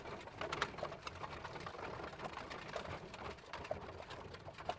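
Faint countryside ambience with birds calling, dotted with scattered light clicks.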